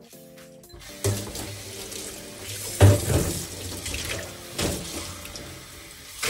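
Kitchen faucet running into a plastic cup held under it, water splashing into the stainless sink, with a sharp knock about three seconds in and another about a second and a half later.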